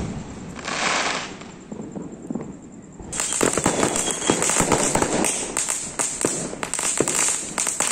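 The crackle of an aerial firework burst trails off in the first second. From about three seconds in, firecrackers pop in fast, unbroken succession, dozens of sharp cracks a second, with small shells bursting overhead.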